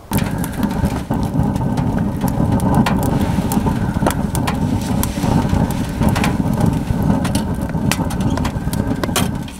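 Wood fire burning hard in a titanium wood stove with the flue drawing well: a steady low roar with many sharp crackles and pops.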